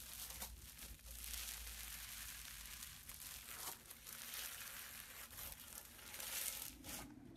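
Floam slime, packed with tiny foam beads, crackling and crunching as hands squeeze, fold and pull it apart, in waves with short pauses between squeezes. The crackling stops just before the end.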